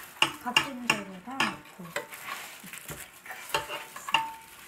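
Metal spoon stirring a thick spice marinade in a glass baking dish, with repeated clinks and scrapes against the glass.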